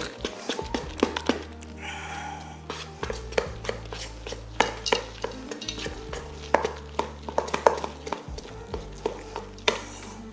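Flour and beaten egg being mixed by hand in a stainless steel bowl: irregular clicks and taps of fingers and hand against the metal bowl as the dough is worked.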